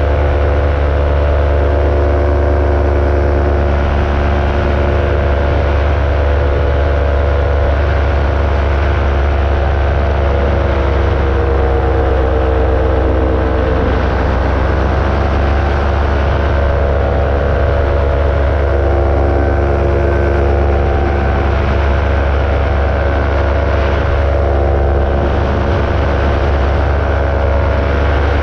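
Ultralight aircraft's engine and propeller droning steadily in cruise flight. The engine note sags slightly about halfway through, then recovers.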